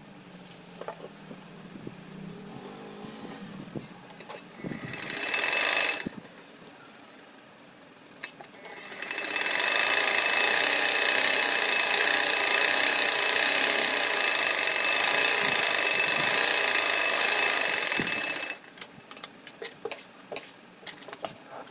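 Sewing machine stitching fabric: a short run about five seconds in, then a long steady run of about ten seconds that stops suddenly. Softer cloth handling and small clicks come before and after.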